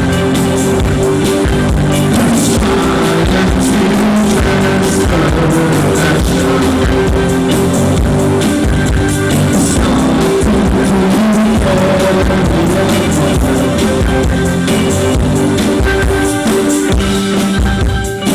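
Live new wave rock band playing loudly, with electric guitar, bass and drums, and some singing over the top.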